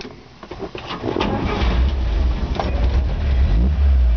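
1957 Chevy 3100 pickup's engine started with its original floor-mounted foot starter: it cranks briefly, catches about a second and a half in, and runs steadily, with a short rise in revs near the end.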